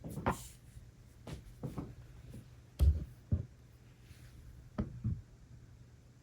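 A series of light knocks and taps, about seven in all, as tableware such as a chopstick rest and chopsticks is set down on a table. The loudest knock comes about three seconds in.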